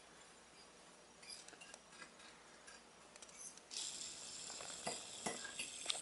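A metal fork stirring dry panko and Italian breadcrumbs with grated Parmesan in a ceramic baking dish. There are light scrapes and clinks at first, then about two-thirds of the way in a steady scratchy hiss of the crumbs being turned, with a few taps of the fork on the dish.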